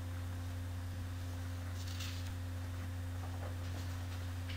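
Steady low electrical hum on the recording, with a faint short rustle about two seconds in.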